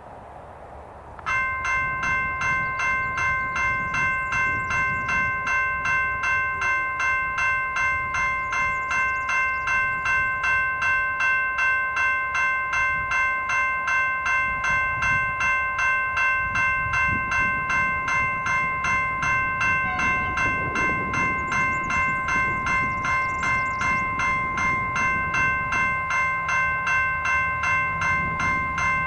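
Level crossing warning bell starting suddenly about a second in and ringing in steady, rapid strokes as the red lights flash, the warning of an approaching train. A train's low engine hum joins near the end.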